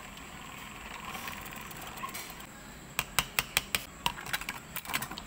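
Ice cubes clattering as they are scooped and dropped into a plastic cup: a quick run of sharp clicks starting about three seconds in.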